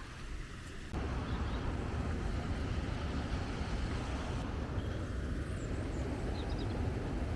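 River water rushing steadily close by, a continuous hiss with a heavy low rumble that starts abruptly about a second in.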